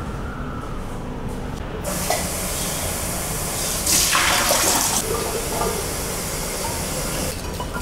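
Water running from a tap as a steady rushing hiss. It starts about two seconds in, grows louder for about a second in the middle, and stops shortly before the end.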